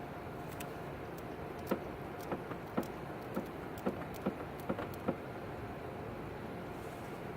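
About ten short, sharp clicks or taps, roughly two a second and a little uneven, over steady background noise; the clicks stop about five seconds in.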